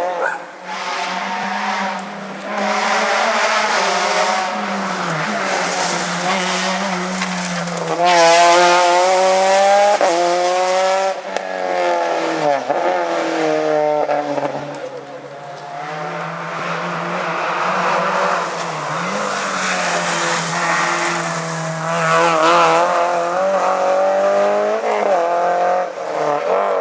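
Rally car engines at full race pace, revs climbing and dropping over and over with gear changes and lifts off the throttle. The loudest, climbing pass comes about eight seconds in.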